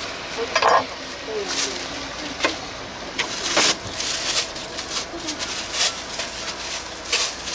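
Faint background voices with irregular sharp clicks and clatter scattered through.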